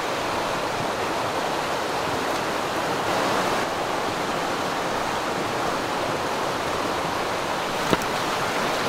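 Steady rushing of running water, with one sharp click near the end.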